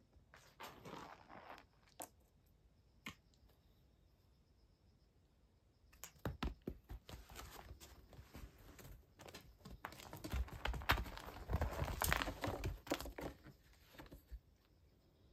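A calico cat's paws and claws scrabbling and thumping on tatami and a corrugated-cardboard scratcher as it pounces after a wand toy. There is a little scratchy rustling about a second in, then a busy run of thumps and scratching from about six seconds in that is loudest near the end before it dies down.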